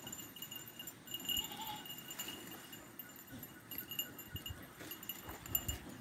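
Goats on a farm, with a short faint bleat about a second and a half in, over a steady high-pitched ringing background and a few low thuds near the end.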